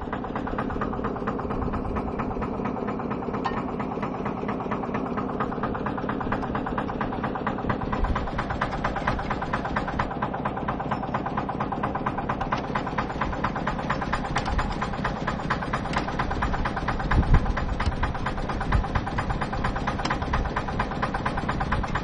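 Tractor engine idling steadily.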